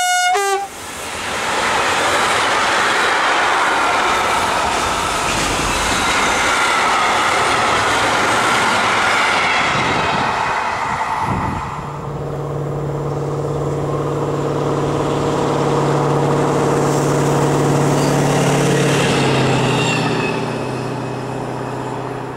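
An electric locomotive's horn sounds briefly right at the start, then a container freight train passes close by with loud rushing wheel-on-rail noise for about eleven seconds. After that comes a steady low hum with several tones.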